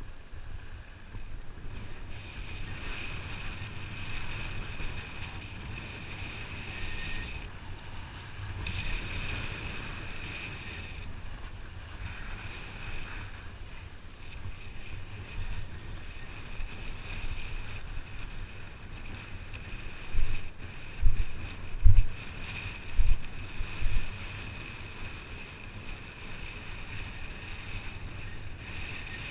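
Wind buffeting a helmet or action camera's microphone while skiing downhill, over the steady hiss and scrape of skis on packed snow. Several louder, low buffets come in quick succession about two-thirds of the way through.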